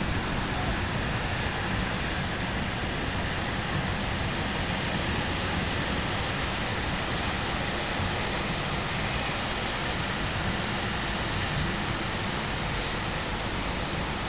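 Steady hiss of a heavy rain downpour.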